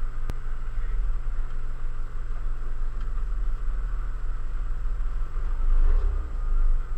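800 cc two-stroke snowmobile engine idling steadily, with a brief rev up and back down about six seconds in. A single sharp click sounds just after the start.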